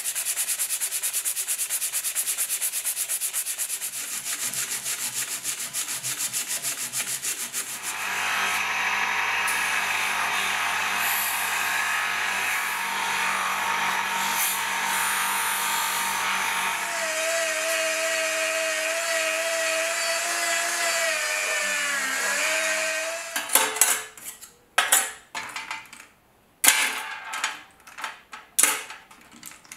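Sandpaper rubbed by hand over a steel bracket in quick back-and-forth strokes. Then a bench buffing wheel runs with a motor hum as the steel is pressed against it, with a wavering whine for a few seconds. Near the end, small metal screws and parts clatter one by one into a stainless steel tray.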